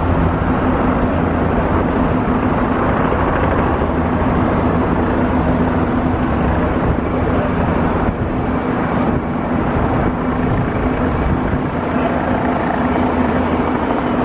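Loud, steady engine drone with a constant low hum.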